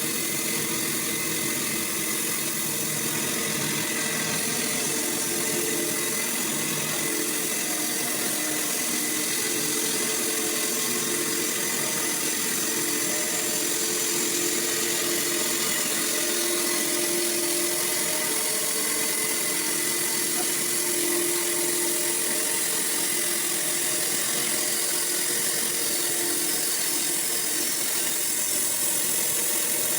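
Sawmill machinery running steadily: a continuous mechanical drone with a thin, steady high whine over it.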